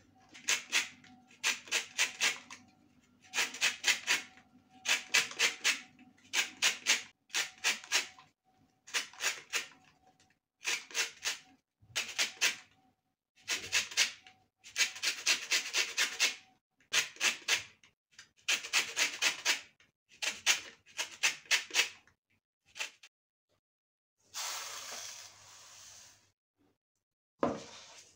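Lemon peel rasped over a fine handheld zester: quick scraping strokes in bursts of four to six, more than a dozen bursts with short pauses between. Near the end, a short steady hiss as a cup of sugar is poured into the bowl.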